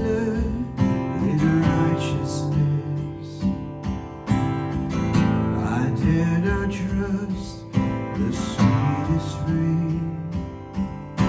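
Instrumental music with a strummed acoustic guitar.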